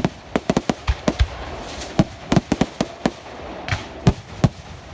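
Fireworks going off: a string of sharp bangs and cracks at irregular intervals, some in quick clusters of two or three.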